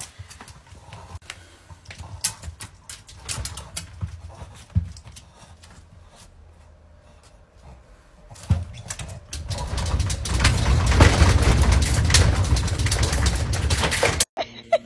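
Boston terrier whining and grunting excitedly at a glass door, with scattered clicks at first. About ten seconds in it becomes loud and continuous as the dog rises on its hind legs against the glass, then cuts off suddenly.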